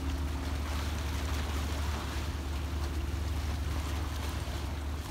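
Steady low drone of a boat engine running, over a hiss of wind and rippling sea water.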